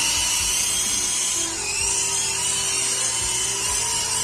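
Electric motor and rotor of a toy RC helicopter running with a steady high whine, its pitch shifting slightly about a second and a half in.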